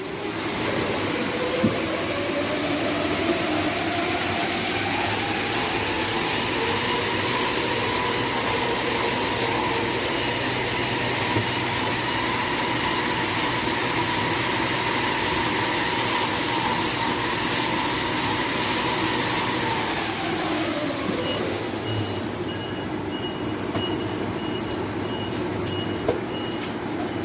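Ceiling-suspended air conditioner's blower fan running with a steady rush of air: its whine rises in pitch over the first few seconds as the motor speeds up, holds, then drops away about twenty seconds in as it slows. The fan runs without the earlier abnormal noise, its motor now re-levelled.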